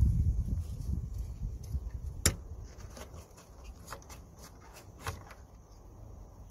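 Pliers working the hose clamp on a car's inline fuel filter: one sharp metallic click about two seconds in and a few fainter ticks later. A low rumble at the start fades within the first second or so.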